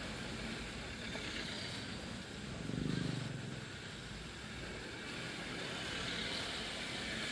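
Motor scooter riding in town traffic: steady engine and road noise mixed with wind on the microphone. A louder low rumble swells and fades about three seconds in.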